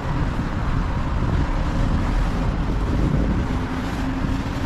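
Wind buffeting the microphone over the steady rumble of city road traffic.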